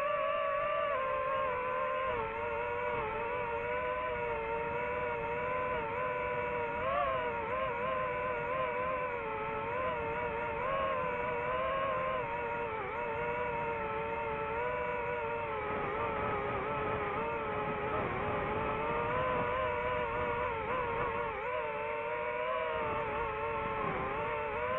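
DJI FPV drone's motors and propellers whining in flight, the pitch wavering up and down as the throttle changes.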